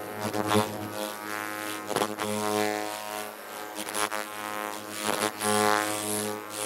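Ultrasonic skin scrubber running after being switched on: a droning electric buzz that swells and eases every couple of seconds, with light hissing and clicking above it.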